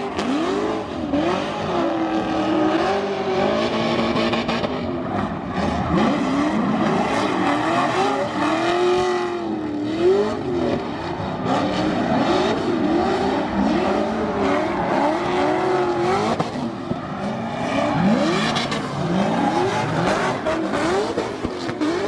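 Drift cars' engines revving hard, the pitch swinging up and down over and over as they slide, with tyres squealing.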